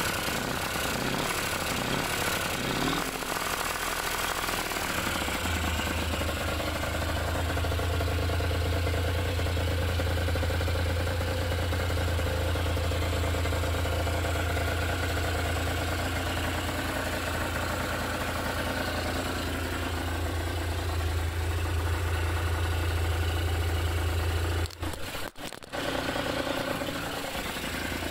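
Honda NS250F's two-stroke V-twin engine, running again after a long lay-up: uneven for the first few seconds, then settling into a steady idle. The sound drops out briefly about 25 seconds in, then the idle carries on.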